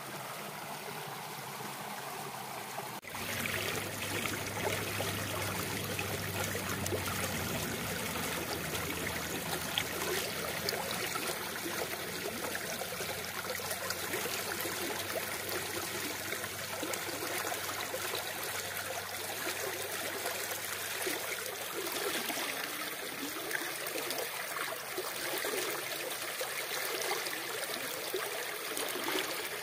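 Shallow mountain stream running over stones. About three seconds in, it becomes a louder, steady rush of water spilling over a low rock ledge close by.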